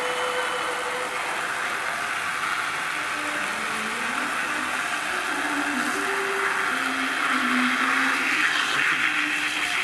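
Hand sprayer spraying liquid onto a paper collage in a steady hiss that grows a little stronger near the end.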